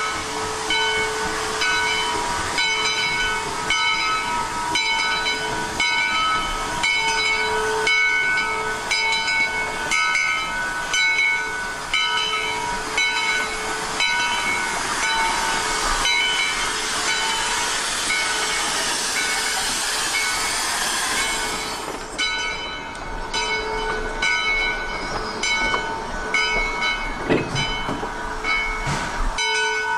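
1928 Shay geared steam locomotive No. 10 standing with steam hissing steadily, with several steady high tones coming and going over it. The loud hiss drops away about 22 seconds in, leaving the tones and fainter hissing.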